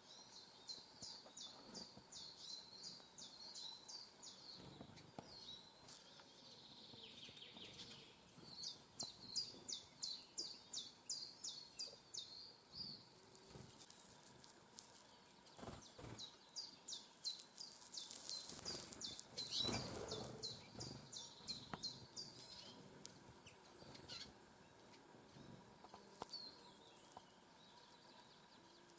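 A small songbird singing, faint: three separate phrases of rapid, high notes, each lasting a few seconds, with pauses between them. A short rustle comes around two-thirds of the way through, during the third phrase.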